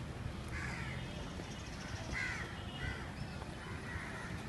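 Birds calling outdoors: four short, harsh calls spread across a few seconds, over a steady low rumble.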